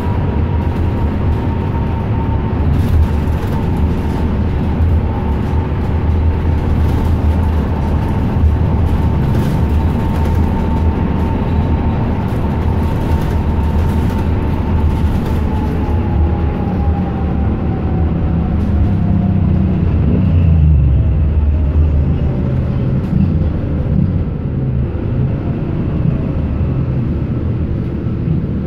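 Bus engine and road noise heard from inside the moving bus, a steady low rumble. A thin whine runs through it and slowly drops in pitch over the second half, and light clicks and rattles come and go in the first half.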